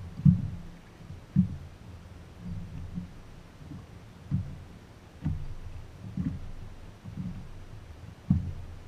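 Small waves slapping against the hull of a bass boat: dull, irregular low thumps about once a second over a faint low rumble, with the loudest just after the start and near the end.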